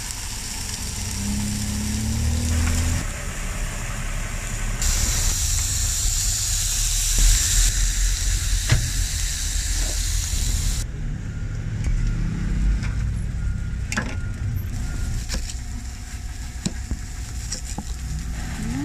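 Egg and thin beef patties sizzling on a flat-top griddle, a steady hiss cut abruptly in several places, over a low rumble. About two-thirds of the way through, the sizzle drops away and a knife clicks sharply, again and again, against a wooden cutting board as an onion is sliced.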